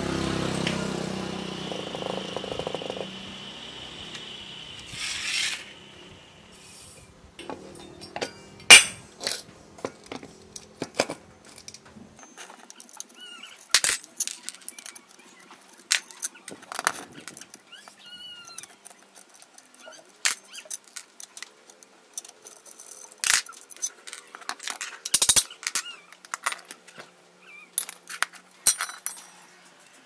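Metal parts of a washing machine motor clicking and clinking on a concrete floor as the motor is taken apart by hand: bolts, nuts and housing pieces knocked and set down, with a few louder knocks. A low hum fades away over the first few seconds.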